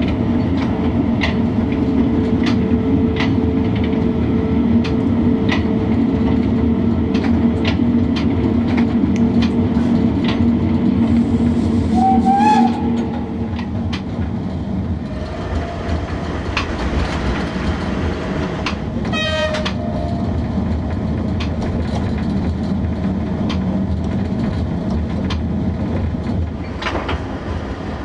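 1958-built class E10 electric locomotive running through station trackwork, heard from the cab: steady running noise with a hum from the traction equipment and wheels clicking over rail joints and points at irregular intervals. The hum falls away about halfway through, and short wheel squeals come twice after that.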